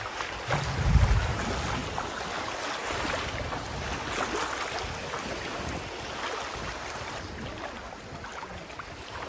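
Wind rumbling on the microphone over the wash of small sea waves at the shore, with a stronger gust about a second in.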